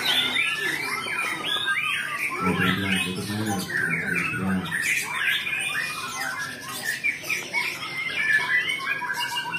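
Many caged white-rumped shamas (murai batu) singing at once: a dense, overlapping chorus of quick gliding whistled phrases. A man's voice joins for about two seconds near the middle.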